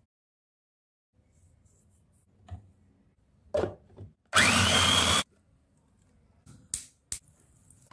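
Electric blender motor run for about a second, its whine rising as it spins up. A few knocks come before it and two sharp clicks near the end.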